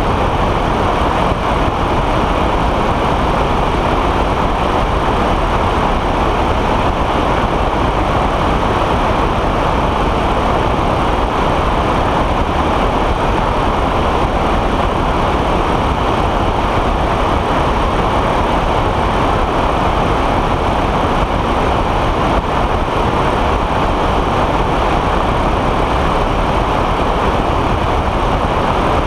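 Steady rush of wind over a wing-mounted microphone, mixed with the drone of a weight-shift trike's pusher engine in level flight.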